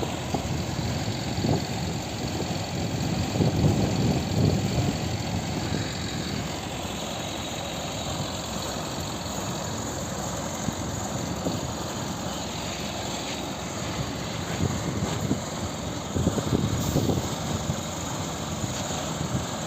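A crane's engine running steadily at a low rumble, swelling louder a few seconds in and again near the end.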